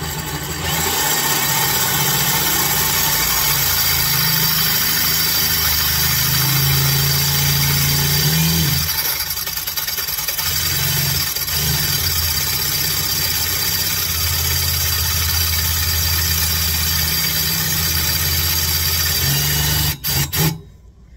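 Power drill running under load with a 1/4-inch bit, drilling into a hardened steel sprocket bolt on the rear hub; the tough metal is burning up the bit. It runs steadily, eases off briefly about halfway, then stops near the end with a couple of short bursts.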